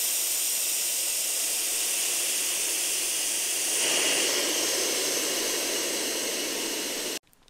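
Air rushing out of the open valve of an inflatable sleeping pad as it is deflated: a loud, steady hiss. It grows louder about four seconds in, then cuts off suddenly near the end.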